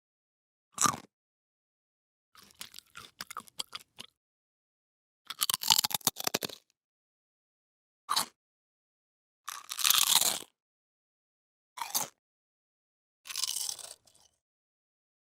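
A series of separate human bite and chew sound effects: crisp bites and crunchy chewing, about seven in all, some a single sharp crunch and some a second-long run of rapid crackles, each separated by dead silence.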